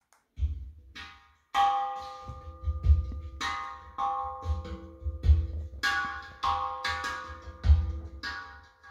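Recorded music played through T+A Criterion T-160 floor-standing hi-fi speakers: sharply struck percussive notes that ring on, over repeated deep bass hits.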